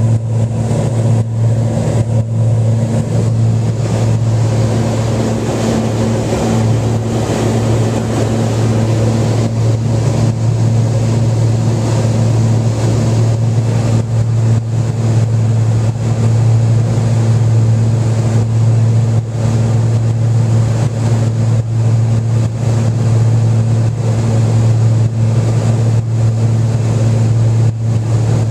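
Cessna 402's twin piston engines and propellers running steadily in flight, a loud, even low drone heard from inside the cabin.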